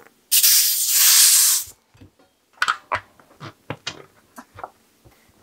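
Air hissing loudly at a bicycle inner tube's valve for about a second and a half, as the tube gets a little air before it goes into the tyre. Then a run of short clicks and rubbing as the tube is handled and tucked into the tyre.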